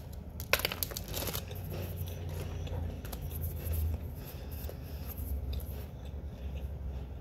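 Bites into a chocolate-coated caramel biscuit: two crisp crunches about a second apart near the start, then chewing close to the microphone.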